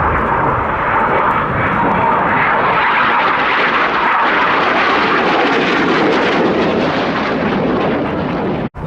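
Red Arrows BAE Hawk T1 jets flying low past, a loud, steady jet engine noise that cuts off suddenly near the end.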